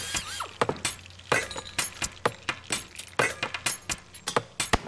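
Irregular light clicks and taps of hard plastic parts as a small RC crawler truck is handled and worked on with a screwdriver, over background music.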